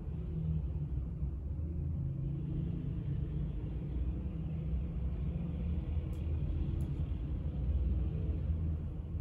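A steady low rumble with no clear rhythm, with two faint ticks about six and seven seconds in.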